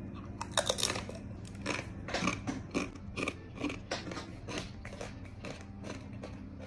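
A person biting into and chewing a thin, crisp melinjo (emping) chip: a steady run of short crunches, about three a second.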